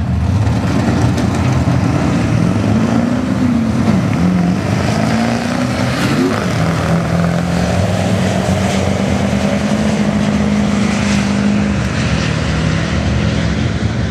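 Diesel pickup trucks, a Ford and a GMC, running a drag race at full throttle. The engine note climbs and falls several times in the first half, then holds a steady drone until it fades slightly near the end.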